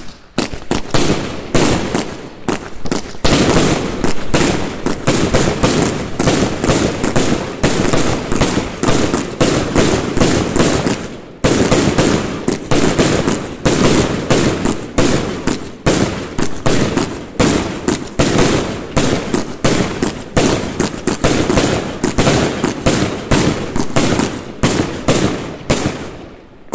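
Sovereign 'Colourful Willows and Crazy Diamonds' 1.3G firework barrage cake firing: a rapid, unbroken run of launch thumps and bursting bangs, several a second. There is a brief gap about eleven seconds in, and it tails off near the end.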